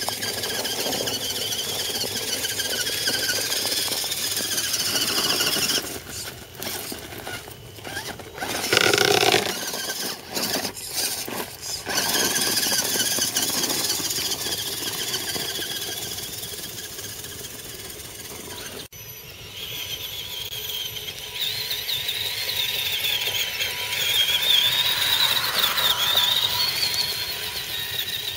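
Electric motors and gear trains of scale RC rock crawlers whining under throttle, the pitch rising and falling as the throttle changes. Partway through the whine comes in short stop-start bursts, and after a sudden break a second truck's whine wavers up and down.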